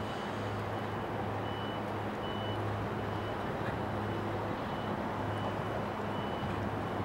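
Diesel engines of the departing car ferry Ferry Kyoto II giving a low, steady drone across the water under a steady rushing noise. A faint high-pitched beep sounds on and off.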